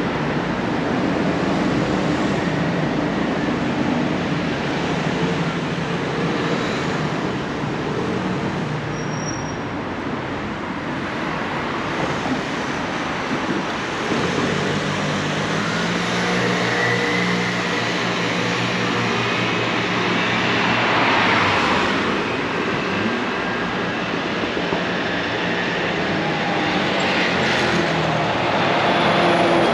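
City street traffic noise: a steady wash of passing vehicles, with a low engine hum that builds in the middle and louder vehicles passing about two-thirds through and near the end.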